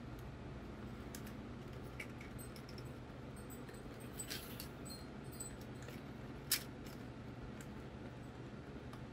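Scattered small plastic clicks and rattles from a Sony WM-FS495 Walkman's casing being handled and snapped back together, with a few clicks about four seconds in and one sharp, louder click about six and a half seconds in.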